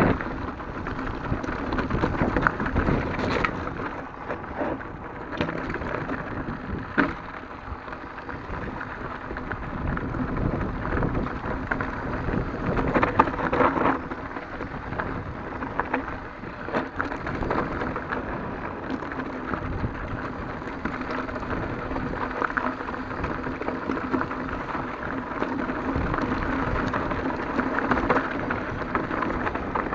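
2017 Santa Cruz Hightower mountain bike rolling over loose rocky dirt: tyres crunching on gravel, and the bike rattling with irregular knocks over stones and bumps.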